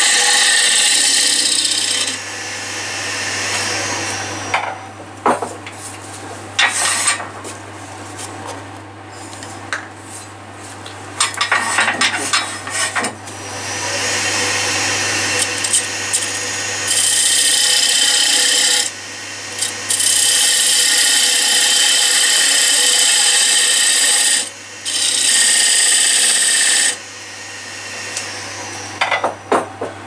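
Wood lathe motor running with a steady hum while a hand-held turning tool cuts a recess into the face of a spinning wooden disc. Several long stretches of cutting noise, the longest about four seconds, alternate with lighter scrapes and ticks as the tool touches the wood.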